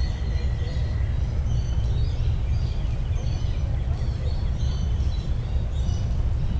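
Steady low rumble of wind on the microphone, with small birds chirping in short, repeated high notes.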